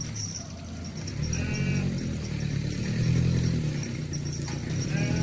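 A small engine running, swelling to its loudest about three seconds in and then easing off, over a steady high chirping of insects.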